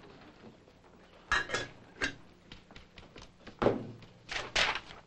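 A handful of sharp knocks and clicks from objects being handled and set down on a desk, with lighter ticks in between. The loudest knocks fall near the end.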